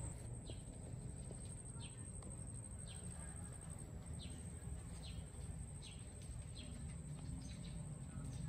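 A small bird chirping repeatedly, short falling notes about once a second, over a low outdoor rumble and a steady high-pitched whine.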